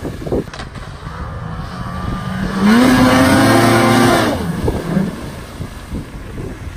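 Snowmobile engine running at high revs as the sled skims across open water. Its pitch climbs and it grows loud about two and a half seconds in as it passes close, then the pitch drops and the sound fades.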